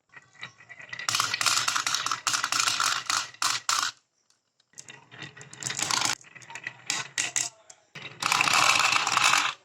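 Marbles rolling and clattering down a course of plastic rain gutters and wooden rails: a dense run of quick clicks and rattles that stops abruptly about four seconds in, starts again, and breaks off once more near the end.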